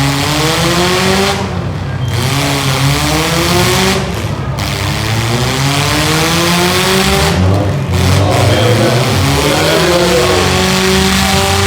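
Compact derby cars' engines revving hard, over and over, each rev climbing in pitch then dropping, over a loud steady din.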